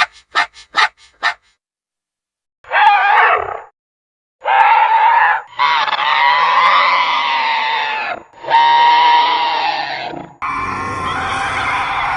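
Made-up creature sound effects for an alien turkey. A quick run of about seven clicks, then a short call and three long, wavering animal-like calls. A last, noisier call starts near the end.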